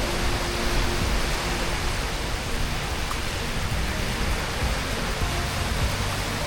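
A steady rushing noise with no clear events, under faint background music that fades out about two seconds in.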